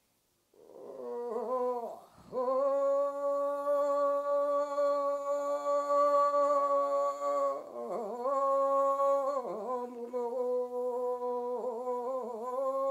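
A solo singer chanting a Yami (Tao) fishing song in free-rhythm, single-line recitative. The voice holds a long steady note, then sings wavering turns between further held notes.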